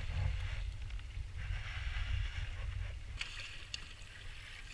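Water lapping and sloshing against a kayak's hull, coming and going in a few brief patches, over a steady low rumble of wind on the microphone.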